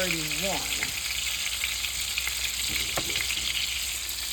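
Beef meatballs frying in a skillet: a steady sizzle flecked with small crackles.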